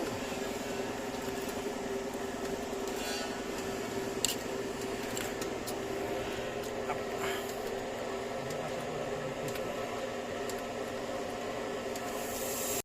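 Steady mechanical hum with a few faint clicks and ticks scattered through it.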